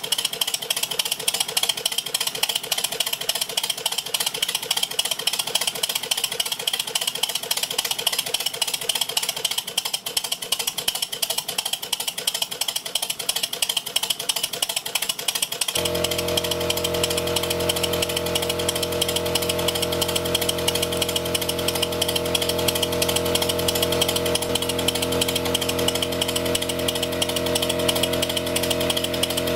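Miniature steam locomotive's motion running fast on compressed air, with a rapid, continuous exhaust beat and mechanical clatter as it drives the axle pump during a water-pumping test. About halfway through, a steady low hum starts abruptly and continues under it.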